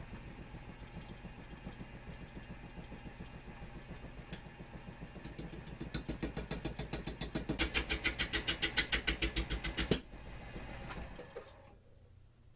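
Wood lathe switched on with an off-balance blank turning between centers, knocking rhythmically with each turn and growing louder as it runs. The knocking cuts off suddenly about ten seconds in, leaving a fainter sound that dies away over the next second or two.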